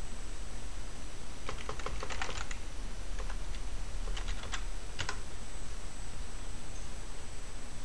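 Typing on a computer keyboard: a quick run of keystrokes about a second and a half in, then a few scattered keystrokes a couple of seconds later, over a steady low hum.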